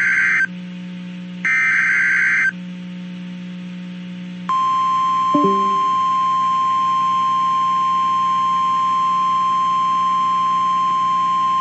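Emergency Alert System header data bursts, short warbling screeches. The last of them ends about 2.5 s in. About 4.5 s in, the steady 1050 Hz NOAA Weather Radio warning alarm tone starts and holds, announcing a tornado warning. A faint low hum runs underneath.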